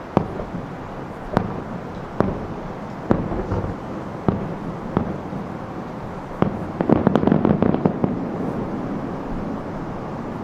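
Distant aerial firework shells bursting: single sharp booms about once a second, then a quick run of many pops about seven seconds in.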